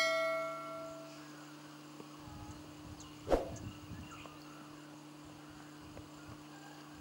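A bright chime from a subscribe-button overlay animation rings at the start and dies away over about a second, over a steady low electrical hum. A single short knock sounds about three seconds in.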